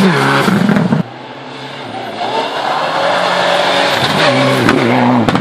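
Subaru Impreza WRX STI rally car passing close at speed on a gravel stage, its engine pitch dropping as it goes by. About a second in the sound cuts to a Mitsubishi Lancer Evolution rally car approaching, its engine building, then falling and rising again through gear changes near the end.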